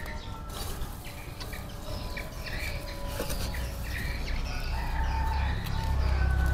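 Chickens clucking, with many short scattered calls and a low rumble that grows toward the end.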